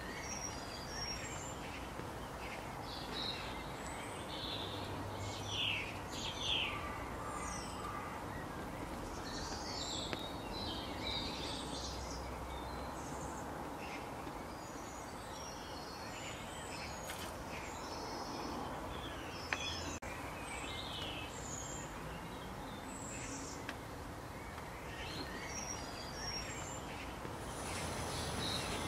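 Songbirds chirping and calling in short, scattered notes over a steady outdoor background hiss, with one sharp click about two-thirds of the way through.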